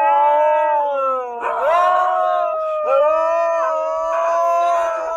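A dog howling in long, drawn-out notes, each swooping up at its start and then held, with a fresh howl beginning about a second and a half in and again near three seconds.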